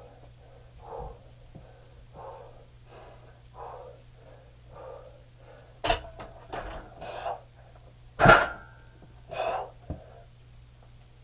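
A man breathing hard in a steady rhythm, about one breath every second and a half, while pressing a barbell. About eight seconds in comes a loud metallic clank with a brief ring, the loudest sound here, with a smaller knock about two seconds before it.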